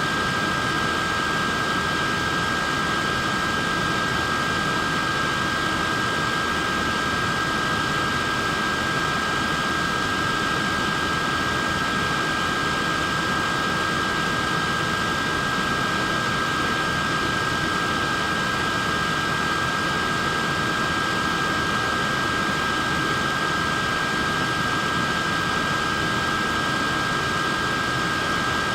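Wearable neck fan running steadily: an even rush of air with a constant high whine from its small motor, which does not change.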